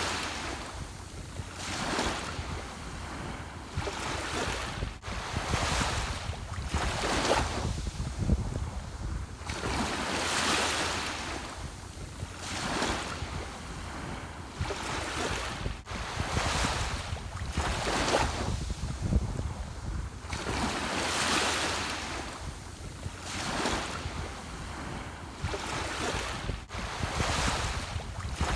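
Ocean waves breaking and washing in, swelling and fading every two to three seconds over a steady low rumble of wind on the microphone.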